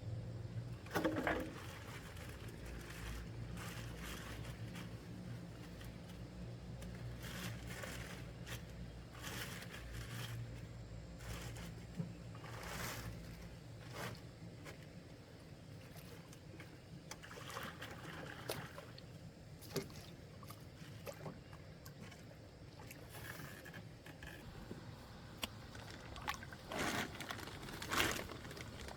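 Lake water splashing and trickling around a small boat, with irregular scrapes and knocks every second or two over a low steady rumble that fades about halfway through.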